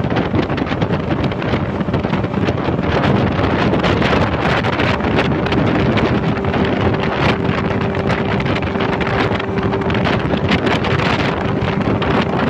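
Wind buffeting the microphone over a motorboat's Yamaha outboard engine running steadily under way. A steady whining tone joins about five seconds in.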